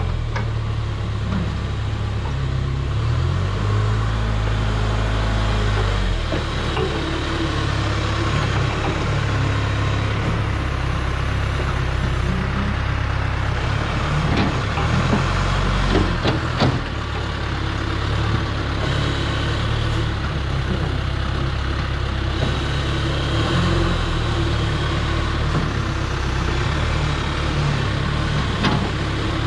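Diesel engine of a John Deere 410 backhoe running, its speed stepping up and down a few times, with several sharp knocks and clanks about halfway through.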